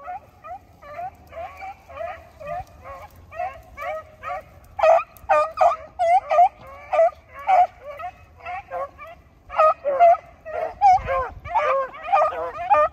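A pack of beagles baying as they run a rabbit: many short, overlapping barks and bawls from several dogs. It starts thin and grows louder and fuller from about five seconds in.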